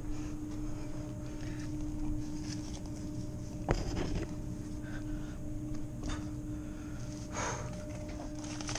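Hands working a valve and pipe fittings into place: one sharp metallic knock about four seconds in, a short scrape near the end and a few small clicks, over a steady machinery hum.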